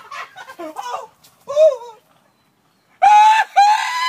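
A man's short, pained yelps and cries as he runs barefoot into a sticker patch. After a second of silence comes a loud, long, high-pitched wail that slides slowly down in pitch.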